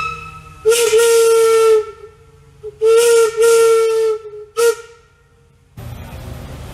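Large antique locomotive whistle blown on compressed air rather than steam, giving two long blasts of about a second each and two short toots, one before the second long blast and one after it, all with a rush of air hiss. Near the end the whistle is silent and only a low rumble is left.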